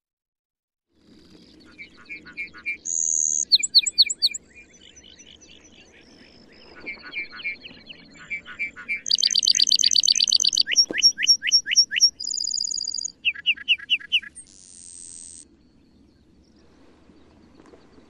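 Male lark bunting singing a long, varied song of repeated notes, trills and slurred whistles. It is loudest with a fast trill about nine seconds in and ends with a buzzy note about fifteen seconds in.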